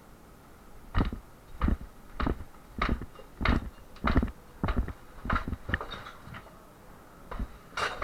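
A run of sharp knocks and thuds, roughly one every half second to second, starting about a second in, with a short pause near the end.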